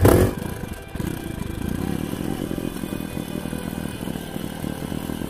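A dirt bike engine running loudly, cut off abruptly a fraction of a second in, then a small Suzuki ATV engine idling steadily with a fast, even putter.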